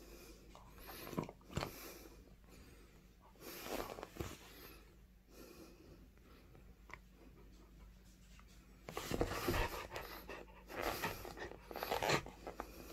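Beagle chewing and tugging at a rubber bone toy, in several short bursts with quieter stretches between.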